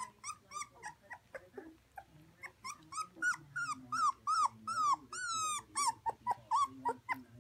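Young puppies crying: a string of short, high cries that rise and fall in pitch, growing louder and more frequent about three seconds in, with one longer drawn-out cry a little past the five-second mark.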